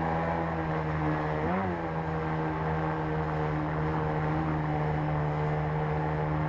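Water-jet outboard motor on an inflatable boat running steadily under load while pushing upstream through shallow rapids. Its note briefly rises and falls in pitch about a second and a half in. Rushing river water is heard underneath.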